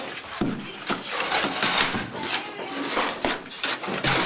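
Shovels scraping and knocking against a metal wheelbarrow while working wet concrete mix: irregular scrapes with sharp clinks.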